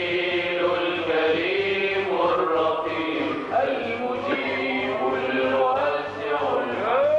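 A group of men chanting Sufi devotional praise together in long, drawn-out notes.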